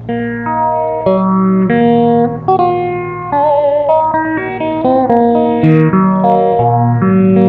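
Electric guitar played through a multi-effects pedal: a slow melody of single held notes, several with wavering vibrato.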